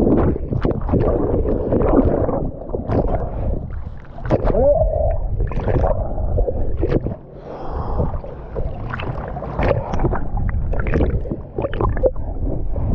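A jet ski running on the water, its engine noise mixed with wind buffeting the microphone and water splashing. The loudness rises and falls unevenly, with many short sharp splashes and knocks.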